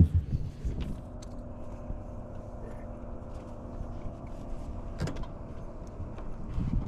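A hard thump, then a boat motor running at a steady pitch, with a sharp click about five seconds in.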